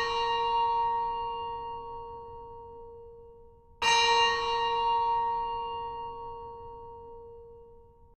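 HTC Sense 4 alarm tone: a bell chime ringing out, struck again about four seconds in, each strike fading slowly.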